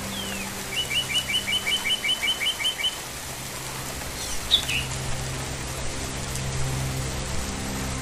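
Songbird calling: a short falling whistle, then a quick, even run of about a dozen chirps lasting some two seconds, and a few more calls about four and a half seconds in. A steady low drone runs underneath.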